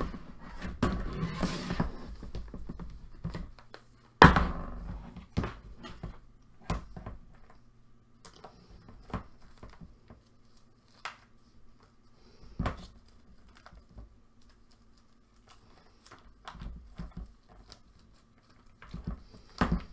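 Small objects being handled and set down: irregular knocks, thunks and rustling, with the loudest knock about four seconds in, over a faint steady low hum.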